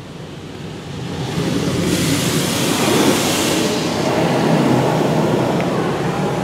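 Water from a Navigator touchless car wash's spray arm hitting the car, heard from inside the cabin as a steady rushing hiss. It swells about a second in as the arm comes close and stays loud.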